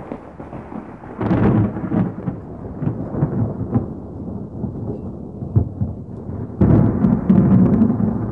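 Low rumbling noise that swells about a second in and again near the end.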